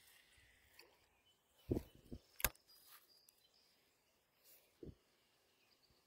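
Quiet outdoor background with a few scattered knocks and one sharp click, about four short hits in all.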